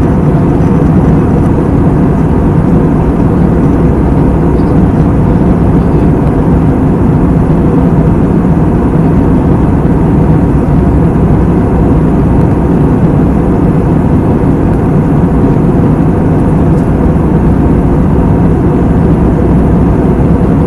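Jet airliner cabin noise in cruise flight: a loud, steady rumble of engines and airflow, heaviest in the low end and unchanging throughout.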